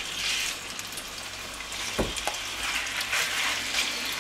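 Raw chicken strips sizzling as they are dropped by hand into hot oil in a wok, the sizzle swelling as more pieces go in. A single dull knock about halfway through.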